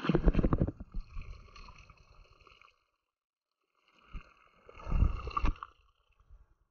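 Spring water running from a hose and splashing and gurgling into a plastic bottle, with a low rumble on the microphone. It comes in two spells, over the first couple of seconds and again about five seconds in.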